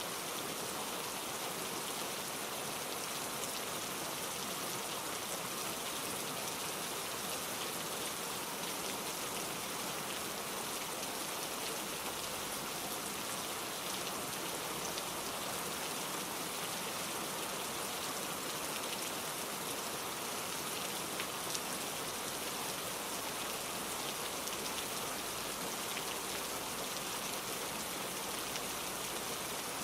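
Steady rain falling, an even hiss of drops on surfaces with no let-up.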